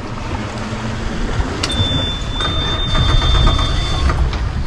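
Boat outboard motor that won't stay running, heard as a low engine rumble, with a sharp click about a third of the way in. A steady high beep follows and lasts about two seconds.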